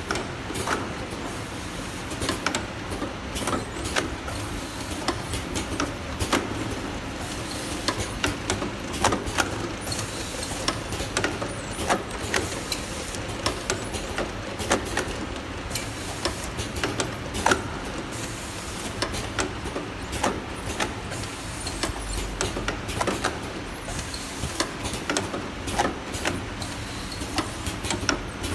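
Automatic round-bottle labeling machine running, with the steady hum of its conveyor and applicator drive and frequent irregular clicks and clacks as bottles pass through and labels are applied.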